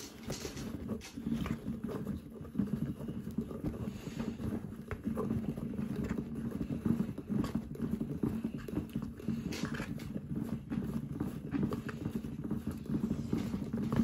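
Small motor of a handmade cardboard toy washing machine running, turning its plastic-cup drum with a wet towel inside. It makes a steady hum with a fast clicking rattle over it.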